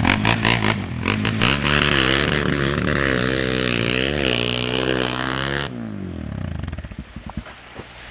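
ATV engine revving hard as the quad drives into a deep mud hole, its pitch climbing and wavering under a hiss of spray. About five and a half seconds in, the sound drops suddenly and the revs fall away as the machine slows in the mud, with a few scattered clicks.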